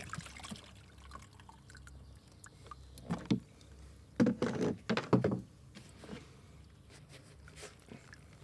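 Knocks and scrapes of plastic handling: a sous vide immersion stick is drawn out of a cooler box's water bath and set down, and the cooler's plastic lid is pried up and lifted off, with a cluster of louder knocks around four to five seconds in.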